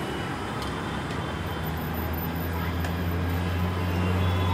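Busy street traffic noise: a steady low engine hum that swells slightly toward the end, with faint background voices and a few light clicks.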